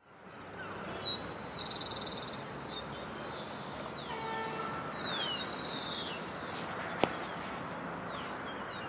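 Outdoor ambience of wild birds calling: high, quickly falling whistles and fast trills over a steady background hiss, with a brief lower pitched call about four seconds in and a single sharp click near the end. The sound fades in from silence at the start.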